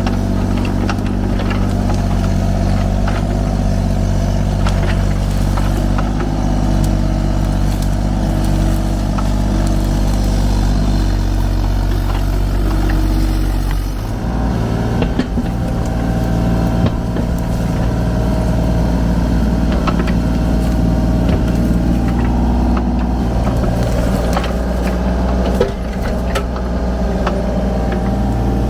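Kubota U35-4 mini excavator's diesel engine running steadily while digging, with scattered knocks from the work. The engine note shifts about halfway through.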